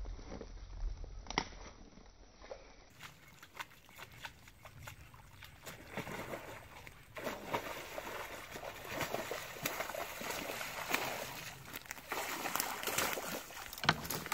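A hooked snakehead fish thrashing at the water surface on the line, a rapid irregular splashing and sloshing that starts about six seconds in and stays loud until the end.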